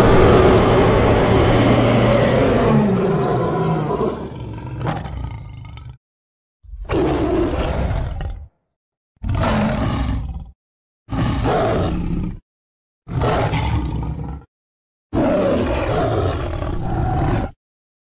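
Big-cat roars used as sabre-toothed cat sound effects: one long roar that fades out over about six seconds, then five shorter roars, each cut off sharply with a moment of silence between them.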